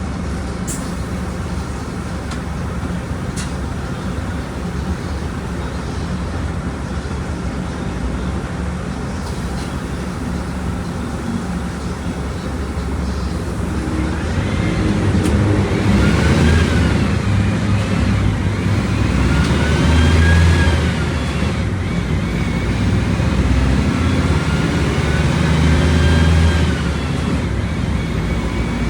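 Volkswagen Volksbus 17.230 Euro 6 bus engine running under way, a steady drone at first. From about halfway through it gets louder and its pitch climbs and drops three times as the bus accelerates.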